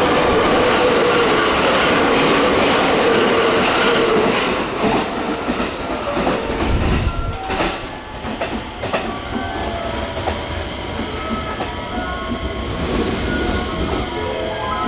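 A train passing through the station at speed without stopping: a loud rush of wheels and air for about the first four seconds. It then fades, with a few clicks of wheels over the rail joints.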